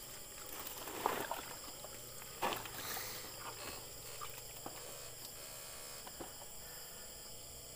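A woven plastic sack rustling as it is opened and handled, with a few louder rustles in the first three seconds, over a steady faint high hiss.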